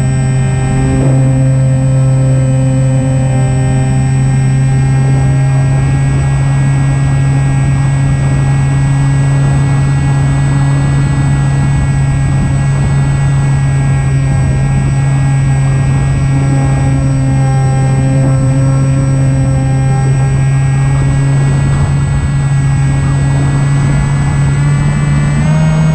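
Electric motor and propeller of an Opterra flying wing running at steady throttle, a loud, even buzzing drone. Near the end its pitch steps up as the throttle is raised.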